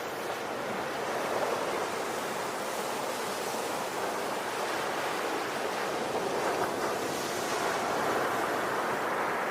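Ocean waves breaking and washing on a shore, a steady rushing surf with gentle swells in loudness.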